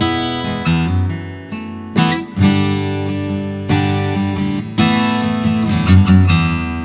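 Taylor 814 Gold Label Super Auditorium acoustic guitar, koa-backed and V-braced, with chords played one after another about once a second, each left to ring.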